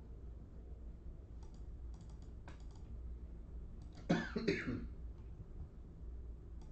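A few faint clicks, then about four seconds in a short, louder double cough. A low steady hum runs underneath.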